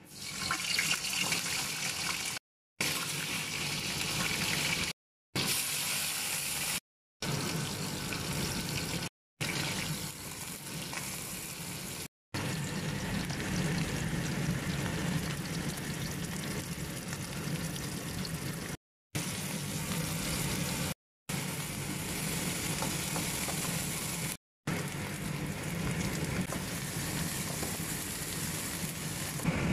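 Hot oil sizzling in a wok as whole spices, lemongrass and blended onion fry. The sizzle is steady but cuts to silence abruptly and briefly about eight times.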